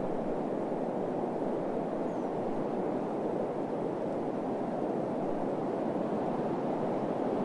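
Steady, unbroken rushing noise, even in level, sitting mostly in the low-middle range: a desert wind or white-noise bed.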